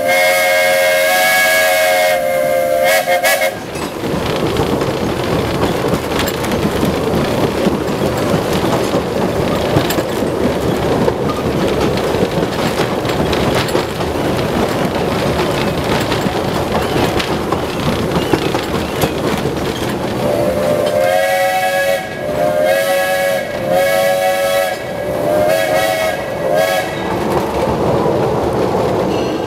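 Steam locomotive's chord whistle sounding for about three and a half seconds, several tones at once, then the steady rumble of the moving train. About twenty seconds in, the whistle sounds again in a series of about five blasts over some seven seconds.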